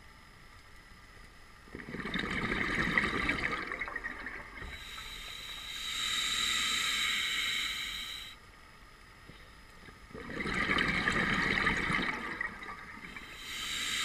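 Diver breathing through an open-circuit scuba regulator: a burst of exhaled bubbles about two seconds in, then a steady hiss of inhalation, and the same bubbles-then-hiss cycle again near the end.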